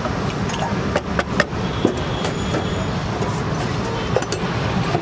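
Steady roadside traffic noise, with a few sharp clacks about a second in and again near the end from a wooden spatula knocking against an aluminium pot as chopped vegetables are stirred.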